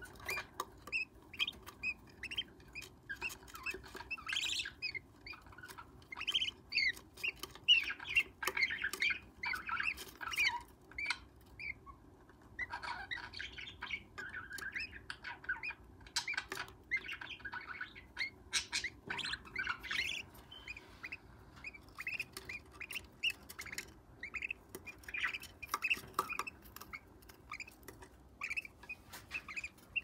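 Small parrot nestlings calling in a nest box: rapid runs of short, raspy chirps, typical of chicks begging to be fed, repeated throughout with brief pauses.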